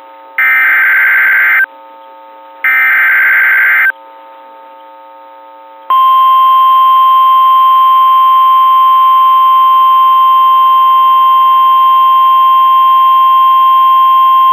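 Emergency Alert System tones on a National Weather Service broadcast. First come the last two of the three SAME header data bursts, harsh buzzing chirps about a second long. After a two-second pause the steady single-pitched 1050 Hz warning alarm tone starts, announcing a new severe thunderstorm warning.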